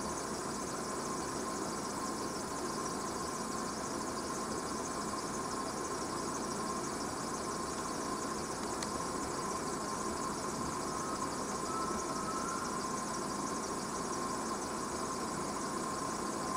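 Steady chorus of insects, a dense high buzzing with a steady lower tone beneath it, and a faint short rising note about eleven seconds in.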